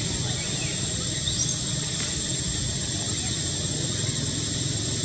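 Outdoor ambience: a steady, very high insect whine over a low rumble, with a few faint short chirps.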